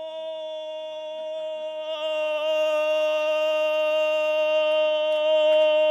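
A preacher's voice drawing a word out into one long sung note, held steady in pitch and swelling slightly about two seconds in, in the chanted style of Black Baptist preaching.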